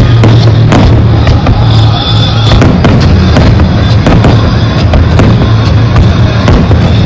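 Aerial firework shells bursting in a display, with repeated sharp bangs and crackles, over loud music with a steady heavy bass.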